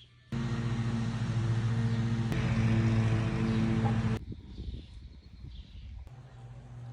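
Power saw running at full speed while cutting tree branches. It is a loud, steady motor whine that starts abruptly and cuts off sharply about four seconds in, followed by a fainter steady hum.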